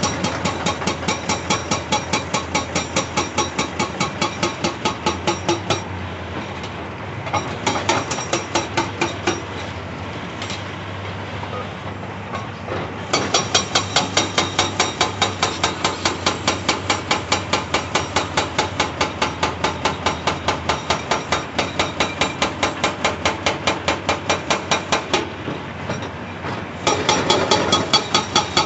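Hydraulic breaker on a Cat 349E excavator hammering rock in fast, even blows, about three to four a second. It stops twice for several seconds, leaving the excavator's engine running, then starts hammering again.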